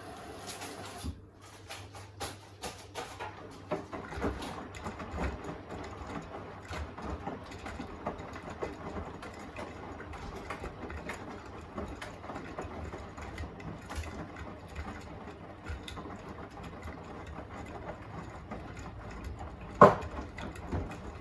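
Beko WTK104121A washing machine mid-wash with a full load: a steady hiss stops about a second in, then the drum turns and the laundry tumbles with irregular clicks and knocks. One sharp, louder knock comes near the end.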